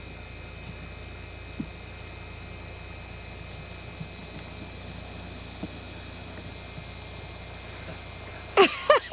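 Steady chorus of crickets and other insects, a constant high-pitched drone with a few faint clicks.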